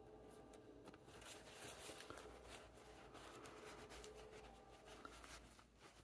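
Faint rustling and crinkling of a paper towel as excess ink is wiped off a freshly inked fountain pen's nib and section.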